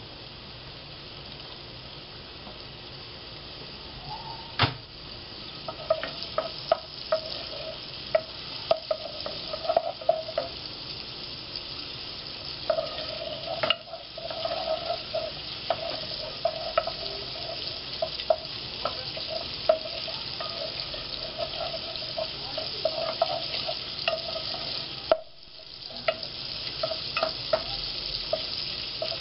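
Diced bacon frying in oil in a metal pot, sizzling steadily, while a wooden spoon stirs it and knocks sharply against the pot again and again.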